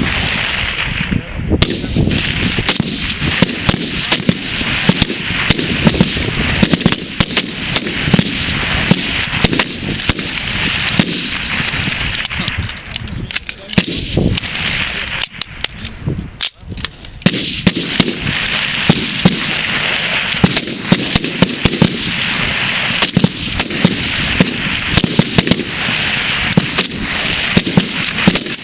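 A highpower rifle firing line in a timed rapid-fire string: many semi-automatic rifles, an AR-15 among them, fire sharp overlapping shots at irregular intervals, often several a second, with a short break about 15 to 17 seconds in.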